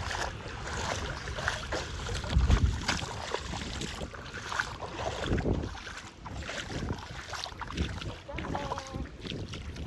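Wind buffeting the phone's microphone, with rustling and small handling knocks; the low rumble gusts loudest about two and a half and five and a half seconds in.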